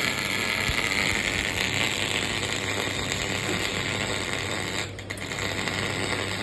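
CO2 (MIG) welding arc crackling steadily as wire is fed into the weld, with a steady low hum underneath and a brief break about five seconds in.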